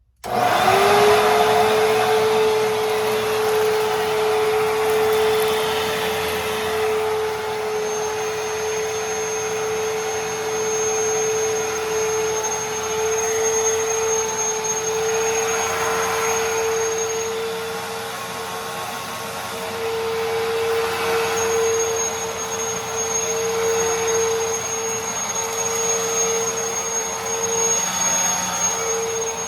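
Hoover Tempo bagless upright vacuum cleaner switched on and running: the motor spins up to a loud, steady whine, and a thin high whistle comes and goes over it.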